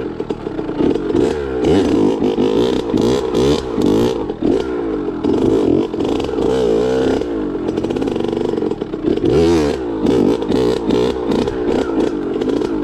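Kawasaki KX65's two-stroke single-cylinder engine being ridden hard, its revs rising and falling every second or so, with many short knocks and rattles over it.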